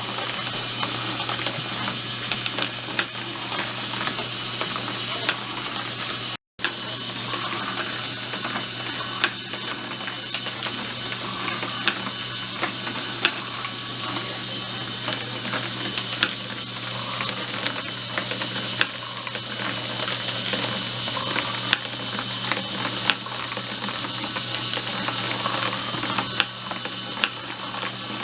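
Motorized marble run running: a small motor and lift mechanism whirring steadily, with marbles clicking and clattering along the track. The sound cuts out for a moment about six seconds in.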